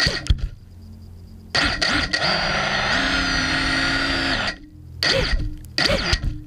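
FPV racing quadcopter's motors and propellers spinning up while the quad sits on the ground. There is a short burst at the start, a steady run of about three seconds with a whine that steps up in pitch partway through, and then two short bursts near the end.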